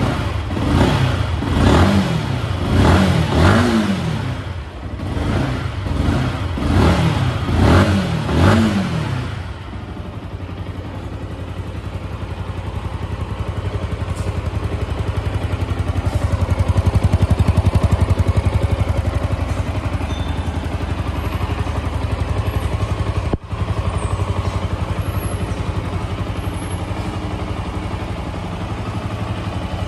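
Yamaha R15 V2's single-cylinder four-stroke engine and exhaust, blipped about eight times with the throttle in quick rising-and-falling revs over the first nine seconds, then settling to a steady idle.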